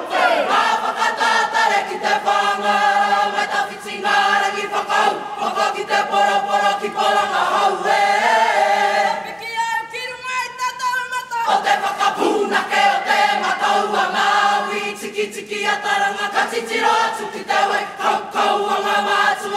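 Kapa haka group singing a waiata in Māori, many voices together. About halfway through, the lower voices drop out for a couple of seconds while the higher voices carry on.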